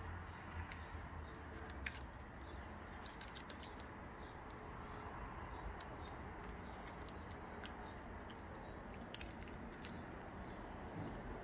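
A cat eating dry kibble from a stainless steel bowl: a run of irregular sharp crunches and clicks as it chews and picks up the pieces.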